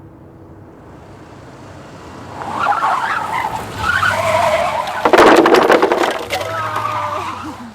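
Losi four-wheel-drive RC rally car's motor whining and wavering in pitch as it speeds up from about two seconds in, then a loud burst of clattering about five seconds in as the car crashes into the cups and toy figures, followed by more motor whine.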